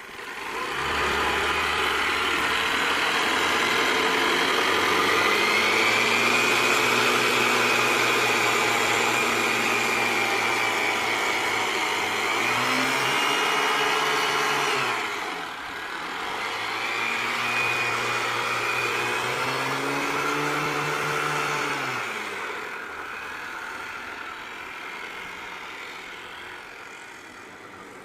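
Honda Activa scooter engine powering a homemade scrap-barrel boat, a small single-cylinder four-stroke, speeding up from idle about a second in and running under throttle. Its pitch dips and climbs again twice in the middle, then drops and fades toward the end.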